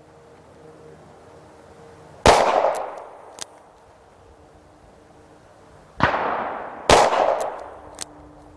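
Three shots from a Rock Island Armory AL9.0 9mm revolver firing Armscor 115-grain ball. One comes about two seconds in, then two in quick succession about six and seven seconds in, each trailing off in a long echo. Two much fainter sharp clicks come after the first and the last shot.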